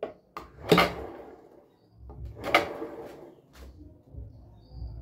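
A few sharp wooden knocks and clunks as the homemade belt sander and a wooden block are handled, with the motor still off. The loudest knocks come about three-quarters of a second in and again about two and a half seconds in, each ringing briefly.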